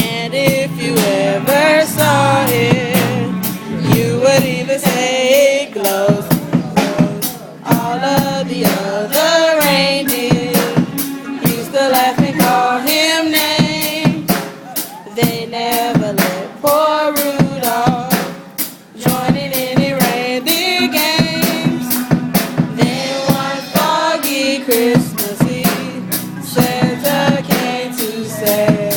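Music with a drum kit playing fast, busy hits of snare, bass drum and cymbals under a wavering melody with vibrato.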